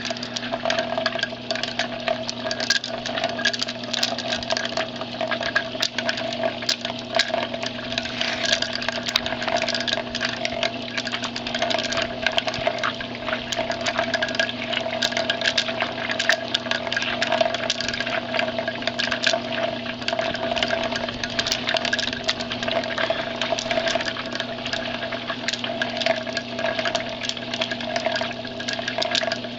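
A tornado demonstration machine running turned up to its highest setting: a steady motor hum under constant churning, splashing water noise.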